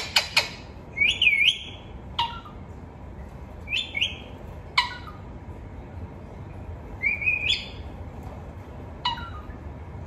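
Pet green parakeet calling: a quick run of sharp chattering notes at the start, then short whistled calls every second or two, some rising and then falling in pitch.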